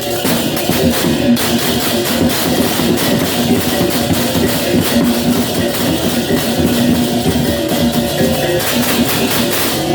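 Balinese baleganjur gamelan playing: fast, dense strokes of cymbals and drums over steady ringing gong tones.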